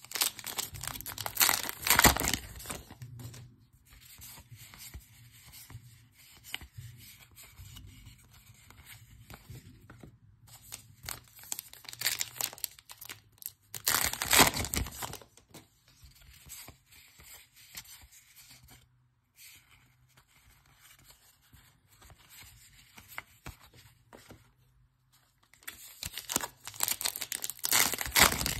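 Baseball card pack wrappers being torn open by hand and crinkled. Three loud bursts of tearing, about twelve seconds apart, with quieter rustling of the wrapper and cards between them.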